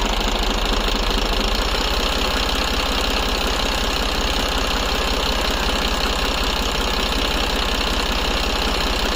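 New Holland 3630 tractor's three-cylinder diesel engine running at a steady, unchanging speed.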